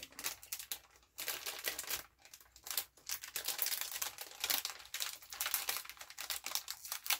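Plastic snack packaging crinkling and rustling as it is handled: a rapid run of crackles with short pauses.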